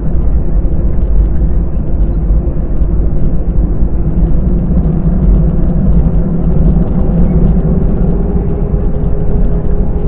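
Airbus A320 cabin noise while taxiing: the engines running at low thrust give a steady low rumble with a faint hum over it.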